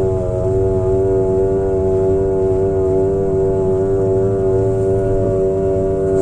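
A steady, pitched mechanical drone from a machine, holding one pitch throughout. It is the abnormal noise the recording was made to capture.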